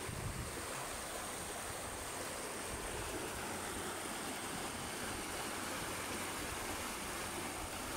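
River water rushing over rapids between rocks: a steady, even rush.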